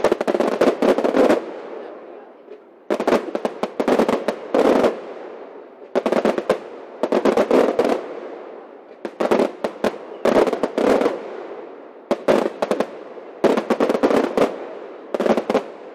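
Fireworks going off in rapid salvos of sharp bangs and crackles, a new cluster every one to two seconds, each dying away in a rolling echo.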